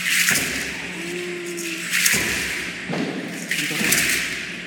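Aztec dance: the dancers' ankle seed-pod rattles (ayoyotes) shaking in swishing bursts every second or two, with low thumps under each burst, echoing in a large hall.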